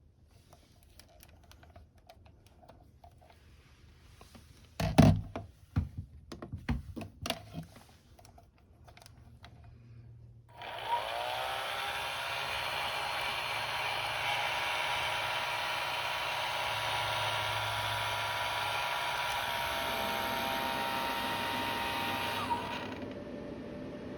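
Handling knocks and clatter, then a hair dryer is switched on: its motor spins up with a rising whine and blows steadily with a loud airy rush. Near the end it drops to a quieter, lower running sound.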